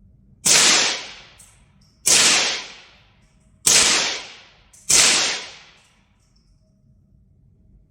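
GSG-16 .22 rimfire carbine firing four shots, roughly a second and a half apart, each with a short reverberant tail.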